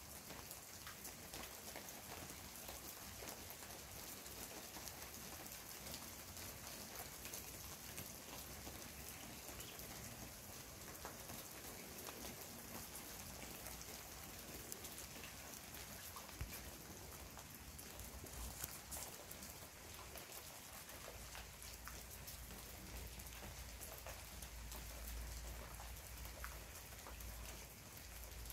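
Steady rain during a thunderstorm, with many individual drops striking a surface. A low rumble joins in over the last several seconds.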